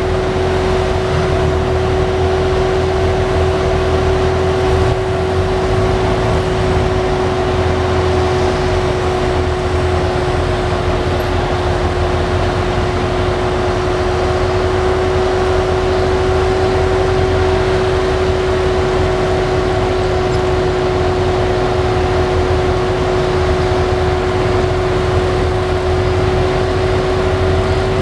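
Car driving at a steady speed: continuous engine and road noise with a constant droning hum that holds one pitch throughout.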